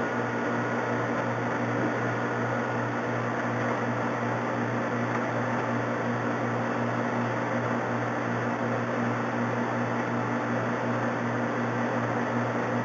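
Steady machine hum in a machine shop, a low drone with a couple of faint steady tones over an even whir, unchanging throughout.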